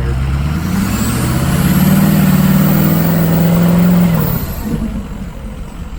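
Diesel engine of a grain truck revved up from idle, held at high revs for a few seconds and let fall back about four seconds in, with a faint high whistle climbing and falling with the revs.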